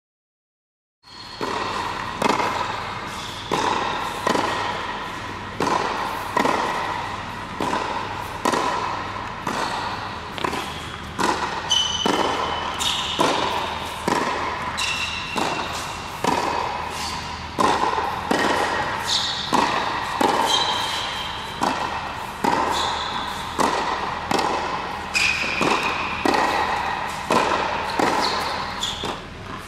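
Tennis balls struck by rackets in quick volley exchanges, sharp hits about once a second that echo in an indoor tennis hall, with short high squeaks now and then.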